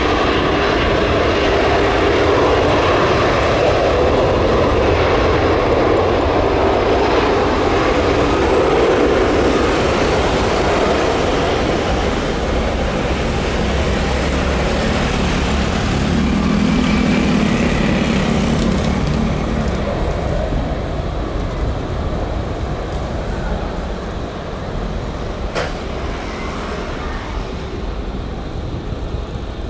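Jet engines of a twin-engine Airbus A330 running at takeoff power during its takeoff roll. The sound is loud and steady, then grows quieter over the last third as the aircraft moves away. A single sharp click comes near the end.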